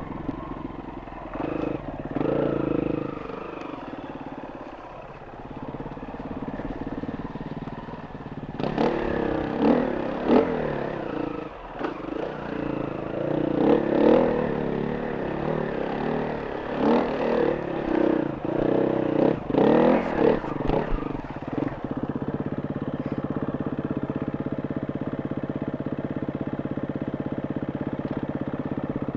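Enduro motorcycle engine running, revved up and down repeatedly through the middle, then settling into a steady idle for the last several seconds.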